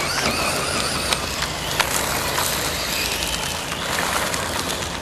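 Brushless electric motors of 1/8-scale RC buggies whining and wavering up and down in pitch with the throttle, over gravel spraying from their tyres, with a few sharp clicks of flung stones.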